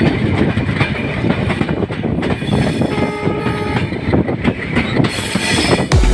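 Passenger train running on the rails: a steady, loud rumble with the clatter of wheels over rail joints.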